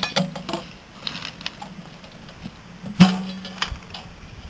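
Steel military ammo can being handled and opened: metallic clicks and clanks from its latch and lid, with one sharp clank about three seconds in that rings briefly.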